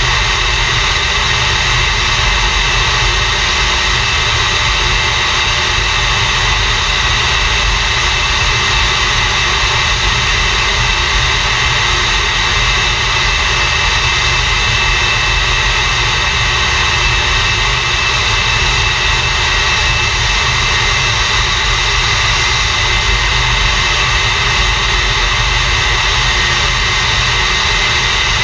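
English Electric Lightning's Rolls-Royce Avon turbojet (engine number 2) running steadily on a ground run: a loud, even jet roar with a steady high whine that holds one pitch.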